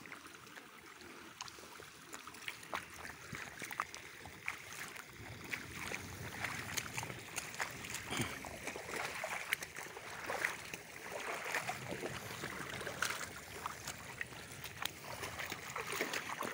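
Footsteps wading through shallow, muddy floodwater: irregular splashing and sloshing that grows louder after about five seconds.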